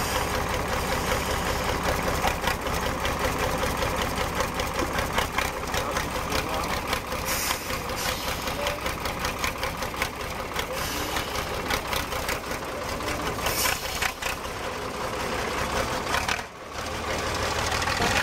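Diesel engine of an off-road trial truck running at low speed as the truck crawls through deep mud and ruts, a steady rattling clatter. It drops out briefly near the end, then comes back.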